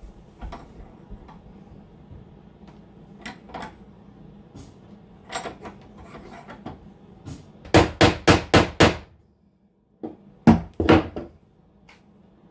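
Hammer blows: scattered light knocks, then a quick run of about six sharp strikes, and after a short pause three or four more.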